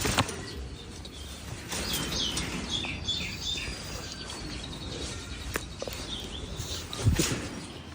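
A run of short, high chirps about two seconds in, over steady background noise, with sharp knocks near the start and a louder knock about seven seconds in.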